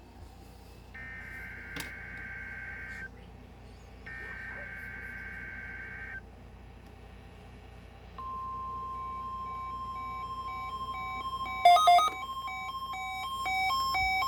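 An Emergency Alert System weekly test on NOAA Weather Radio. First come two SAME digital header bursts, warbling data tones about two seconds each with a second's gap between them. About eight seconds in, the steady 1050 Hz NOAA warning alarm tone starts, and a few seconds later a pulsing pattern of short beeps begins over it.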